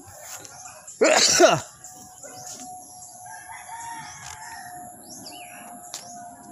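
A rooster crows once, loud and short, its pitch falling, about a second in. Faint bird chirps follow.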